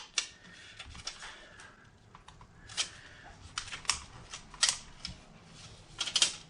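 Scattered small clicks, ticks and light scraping from hand tools and plastic and metal laptop parts being handled while a laptop is taken apart, with a quick cluster of clicks near the end.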